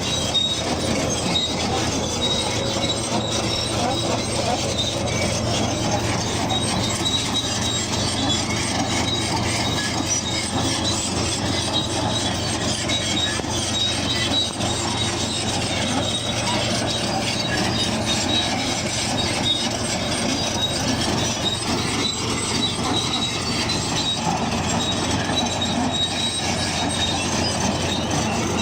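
Bulldozer working, its engine running under load while the steel tracks squeal and clank, a steady sound throughout.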